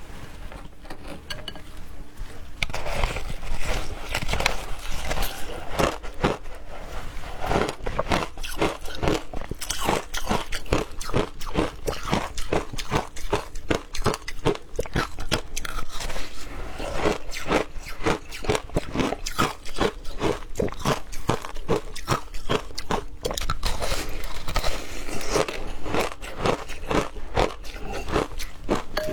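Ice being bitten and chewed close to the microphone: a continuous run of crisp crunches, several a second.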